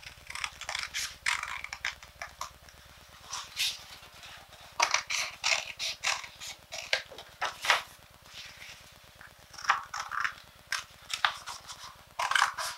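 Scissors cutting through folded construction paper, a run of irregular crisp snips with the paper rustling as it is turned.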